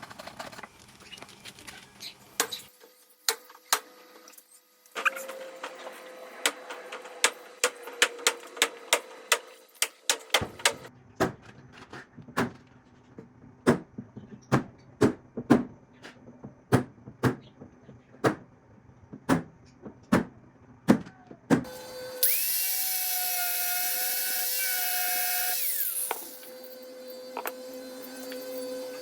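A series of sharp knocks, about one to two a second, then a power drill runs steadily for about four seconds near the end.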